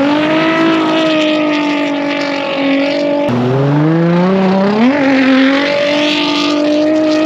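Ice-racing car's engine pulling hard at high revs and holding there. About three seconds in the note cuts and drops sharply at an upshift, then climbs again and stays high.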